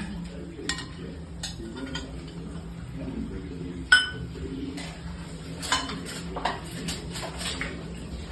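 Metal kitchen utensils and cookware clinking: a string of separate sharp clinks with a brief ring, the loudest about four seconds in.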